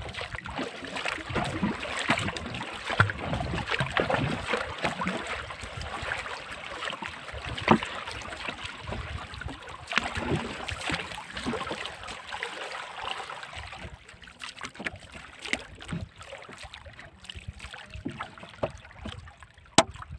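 Wooden paddle stroking and splashing through calm sea water beside a small boat, in an irregular rhythm, with a few sharp knocks. It grows quieter after about two-thirds of the way through.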